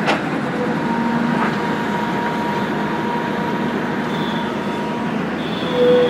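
Tata Hitachi hydraulic excavator running steadily as it works, its diesel engine and hydraulics making a continuous mechanical noise with a faint held whine. There is a sharp click at the very start.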